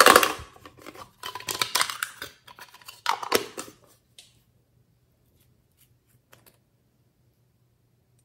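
A card-backed blister package holding a nail polish bottle being opened by hand: crisp handling noise in three clusters over about four seconds, loudest at the start. After that it is quiet except for a few faint clicks.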